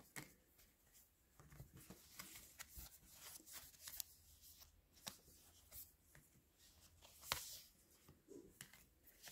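Faint sliding and clicking of large round Wild Unknown Archetypes oracle cards being flipped through by hand, with a slightly louder click about seven seconds in.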